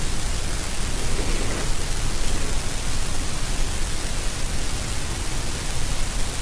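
A steady, even rushing noise with a low rumble beneath it, unbroken throughout.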